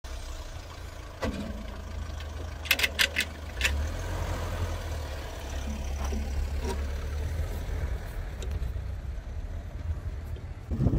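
Tractor air filter element being handled and pushed into its metal air cleaner housing: a few sharp clicks and knocks in the first four seconds, over a steady low rumble.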